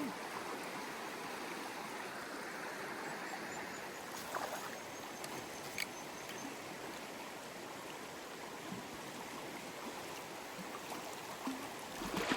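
Steady rush of flowing river water, with a couple of faint clicks about four and six seconds in.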